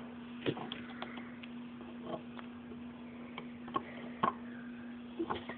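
Scattered light clicks and taps of a crochet-style hook and rubber bands being worked on a bracelet loom, about half a dozen over a few seconds, with a faint steady hum underneath.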